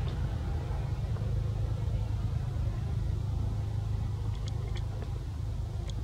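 A steady low rumble, with a few faint short high ticks in the second half.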